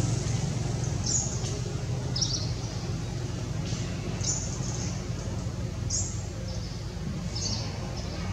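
Small birds chirping: short, high, falling chirps about once every second or so, over a steady low rumble of distant engine traffic.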